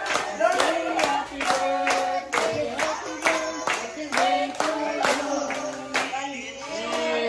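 People singing together while clapping along in a steady beat, about two claps a second.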